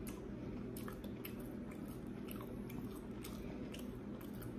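Close-miked chewing of a mouthful of butter-baked lobster tail: soft, wet mouth sounds with scattered faint, irregular clicks and smacks.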